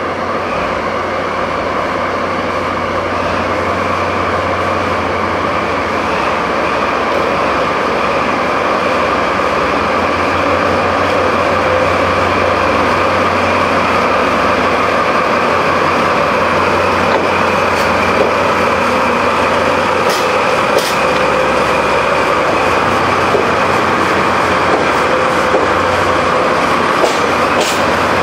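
A DD51 diesel-hydraulic locomotive with its two V12 diesel engines working as it pulls a train of coaches away. It gives a steady low drone with a whine over it, slowly growing louder, and a few sharp clicks near the end.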